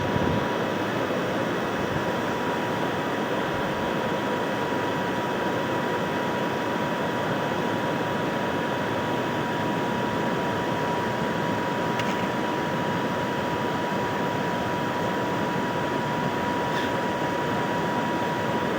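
A small electric motor of a radio-controlled toy vehicle running steadily, a constant whirring with a thin steady whine.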